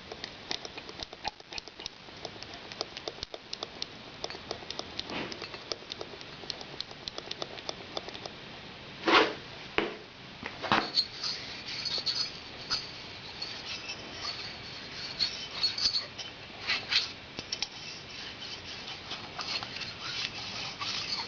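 Light scratching, clicking and scraping of hand work, with a few louder short scrapes about nine, eleven and seventeen seconds in.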